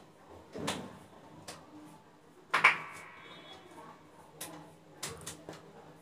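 Pliers and a spring hose clamp being worked onto a rubber hose inside a front-load washing machine: scattered clicks and knocks. The loudest is a sharp clack about two and a half seconds in, with a short metallic ring after it.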